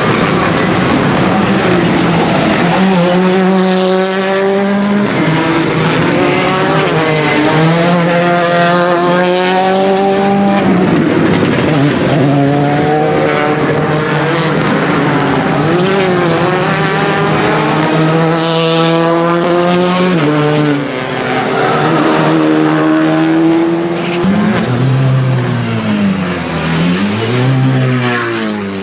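A rally car's engine driven hard, the revs climbing and dropping again and again through gear changes, with tyres skidding. In the last few seconds the revs swing rapidly up and down.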